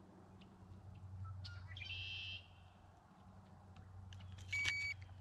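A handheld digital fish scale gives a short electronic beep about four and a half seconds in as it settles on the bass's weight. A brief bird chirp comes about two seconds in, over a low steady hum.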